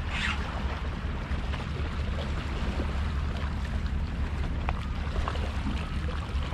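Wind buffeting the microphone in a steady low rumble, over water lapping against the shore rocks, with a few faint clicks.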